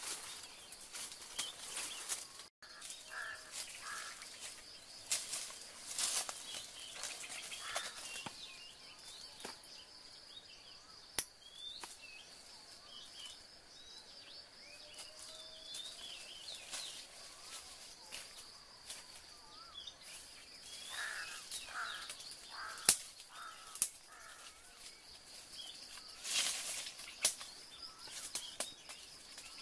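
Dry-forest ambience: a steady high-pitched insect drone, scattered bird calls, and footsteps crunching and rustling in dry leaf litter, with a few sharp twig snaps.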